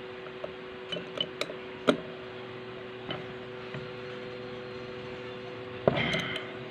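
Small metal parts and tools clicking and clinking as a Singer edger sewing machine is being reassembled: a handful of sharp ticks spread through the first half, then a louder clatter near the end, over a steady low hum.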